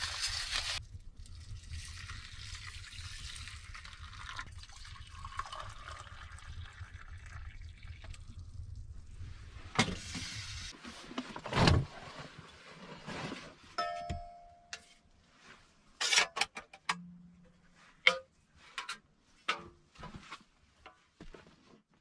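A paper packet rustling as its contents are tipped into a metal bowl, then a steady pouring sound for about ten seconds, followed by scattered knocks and clicks.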